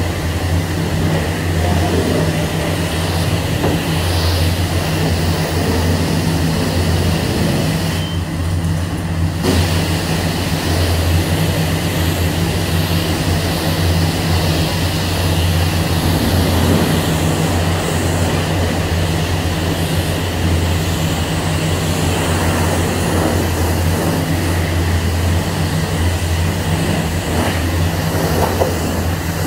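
High-pressure water spray from a self-serve car wash wand hissing steadily onto a car body over a constant low drone. The spray briefly cuts out about eight seconds in and comes back a second and a half later.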